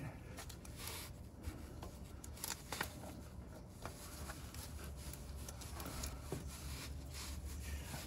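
Faint rubbing and scraping with a few small clicks as a gloved hand works a ribbed serpentine drive belt over the pulleys and onto the belt tensioner.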